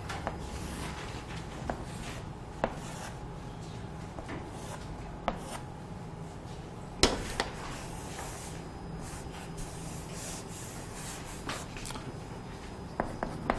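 Chalk on a chalkboard: soft scratchy strokes as straight lines are drawn, with several sharp taps as the chalk strikes the board.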